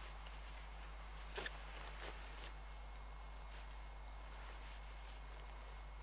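Faint rustling and scraping of a camouflage net being draped and pulled over a pop-up hide, with a couple of light clicks about one and a half and two seconds in.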